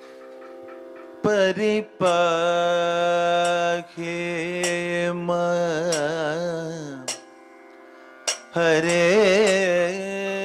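Kathakali vocal music: male singers holding long notes that waver and bend in pitch over a steady drone, with a few sharp percussion strokes. The singing breaks off about seven seconds in and resumes about a second and a half later.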